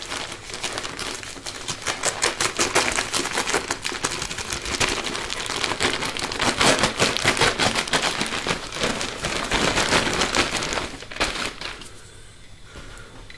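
Christmas wrapping paper crinkling and crackling as it is pulled off a present by hand: a dense, busy run of crackles that dies down near the end.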